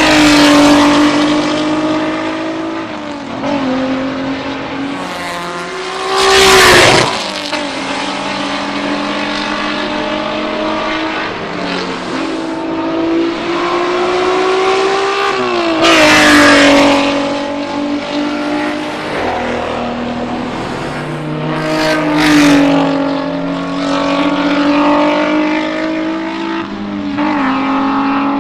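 Alfa Romeo GTV6 race car's V6 at racing speed, its note climbing and dropping with throttle and gear changes. Three loud rushes about 6 s, 16 s and 22 s in, as it passes close by.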